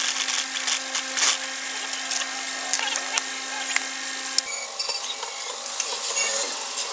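Electric sewing machine stitching, its motor humming steadily with a rasping needle action, then stopping with a click about four seconds in.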